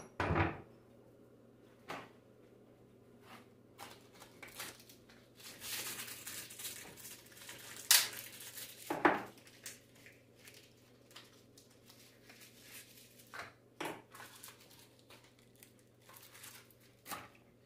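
Alternator parts being handled and fitted together on a workbench: scattered metal clinks and knocks, with a stretch of rustling and scraping in the middle, over a faint steady hum.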